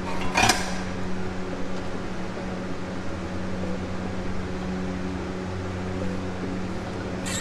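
A steady electric machine hum with an even low tone, broken by a sharp click about half a second in and another near the end.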